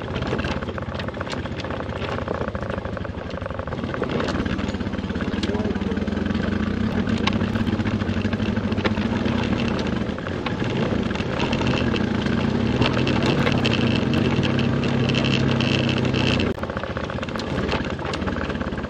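Off-road vehicle engine running under load, its note stepping up a couple of times and then dropping suddenly near the end as the throttle comes off, with frequent rattles and knocks from the ride.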